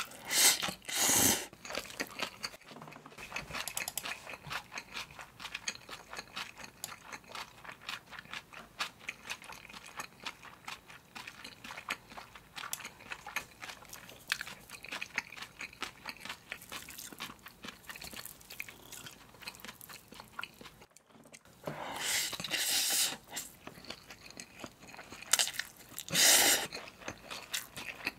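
Close-up mukbang eating sounds: slurping spicy cold noodles off chopsticks and chewing them, noodles mixed with chopped aged kimchi, with many small wet, crunchy chewing clicks. Louder slurps come about a second in and twice near the end.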